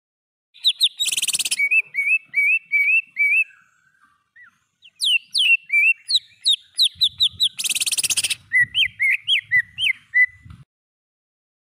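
Cucak ijo (green leafbird) song: two phrases of quick, repeated slurred whistled notes, each broken by a short harsh rasp, with a brief pause between them. The song stops about a second before the end.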